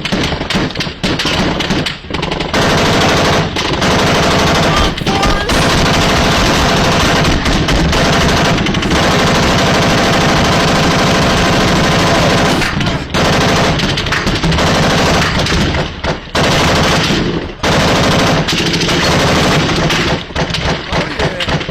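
Sustained automatic gunfire: long strings of rapid shots running together almost without pause, broken by brief lulls every few seconds. It sounds like a rainstorm or hail hitting a house.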